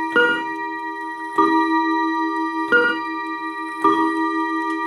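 Junghans mantel clock striking the hour with a two-tone strike. High and low strikes alternate about every 1.2 seconds, four in all, each ringing on until the next.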